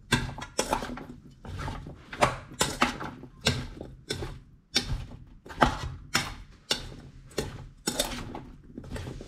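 Metal spoon stirring diced cucumbers in a stainless steel bowl, scraping and clinking against the bowl about twice a second.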